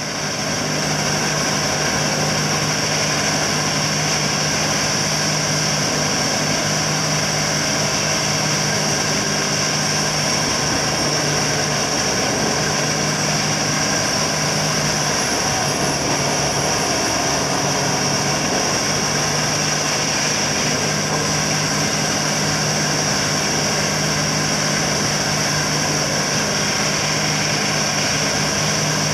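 Earthsaver P13 tub grinder with its CAT 3412 diesel engine running steadily at working speed, with a steady high whine over the engine note.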